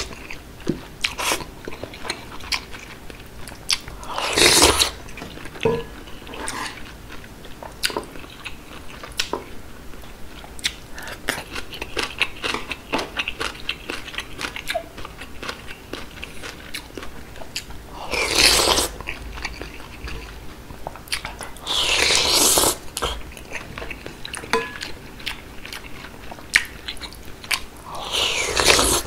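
Close-miked eating of seaweed-soup ramen: four loud slurps of noodles and broth spread through, one near the end, with wet chewing and mouth clicks in between.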